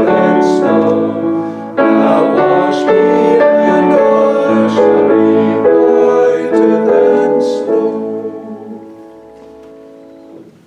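Piano playing slow hymn chords that die away about eight seconds in, ending the hymn.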